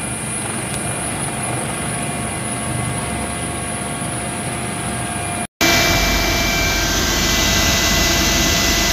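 MH-65 Dolphin helicopter running, heard from inside its cabin: a loud, steady engine and rotor noise with a steady whine over it. It cuts out for an instant about five and a half seconds in and comes back louder.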